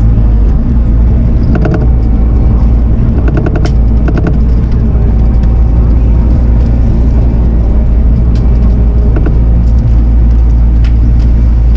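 Diesel engine of a Bobcat compact machine running steadily at working speed, with scattered short clatters and cracks over it.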